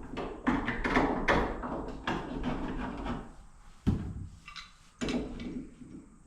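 Clicks and knocks of an old door lock and latch being handled and worked: a quick run of small clicks, then a sharper knock about four seconds in and another about a second later.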